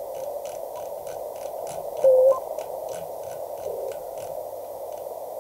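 Venus SW-3B QRP transceiver's receiver audio while its VFO is tuned across the 20 m CW band: steady band hiss through its narrow CW filter, with faint clicks about three a second as the dial turns. About two seconds in, a short CW tone sounds as the dial sweeps past a signal.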